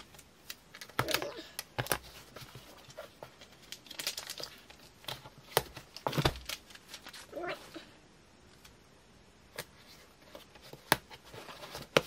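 Strips of adhesive tape peeled off their backing and pressed onto a cardboard shipping box, with crinkling, tapping and handling of the cardboard in irregular short sounds.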